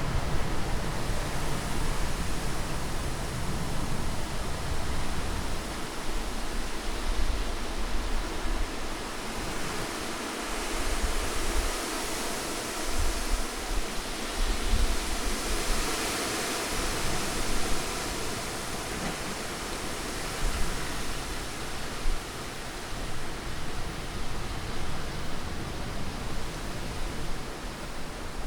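Wind blowing as a continuous rushing noise, swelling in a long gust in the middle, with a low rumble that comes and goes.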